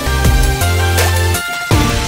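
Background music: an electronic track with deep held bass notes, sustained tones and a few drum hits.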